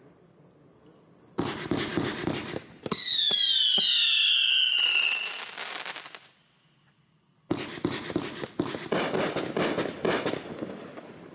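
A 24-shot, 500-gram consumer firework cake firing: a quick run of bangs, then several shrill whistles falling in pitch for about two and a half seconds. After a short pause a second run of bangs and crackles follows as the shells burst.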